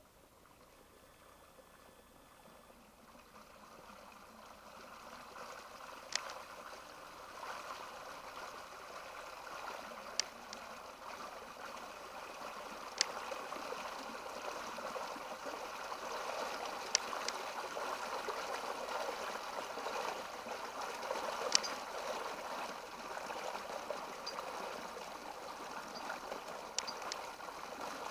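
Front of a minor flash-flood surge trickling and gurgling down a dry sandy creek bed over rocks, growing louder over the first several seconds as the water arrives, then flowing steadily. A few sharp clicks sound now and then over the water.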